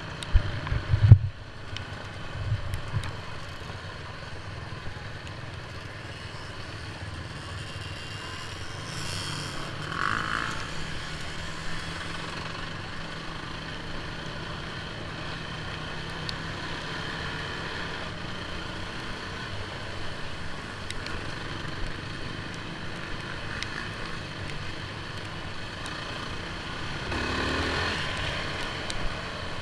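ATV engine running steadily while riding a dirt trail, with a few loud low thumps about a second in.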